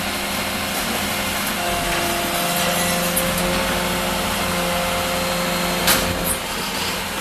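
Toy garbage truck making a steady, grinding mechanical noise with a faint hum under it.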